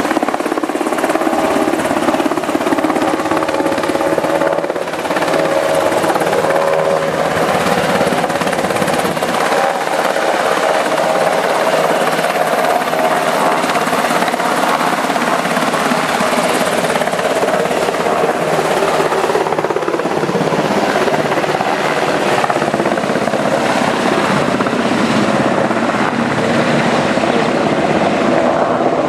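Navy H-60 Seahawk helicopter's turbine engines and rotor running steadily as it hovers and flies with a cargo net slung beneath it, with a steady whine through a continuous rush of noise.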